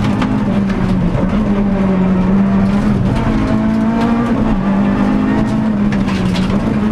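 Renault Clio Sport rally car's engine heard from inside the cabin, running hard along the stage with a steady pitch that dips briefly a few times, with scattered short knocks over it.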